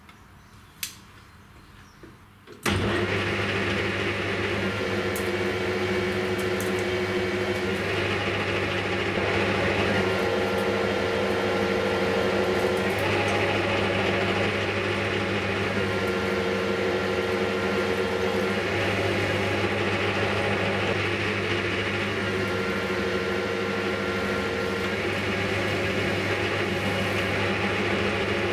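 Quiet room with a single click, then a Hafco Metal Master AL-340 metal lathe starts running suddenly about three seconds in and runs steadily while turning a steel gear blank. A higher-pitched sound rises over the steady hum and fades again about every six seconds.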